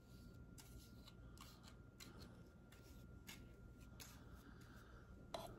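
Near silence with faint rustles and light ticks of cardstock being handled, and a slightly louder soft knock near the end.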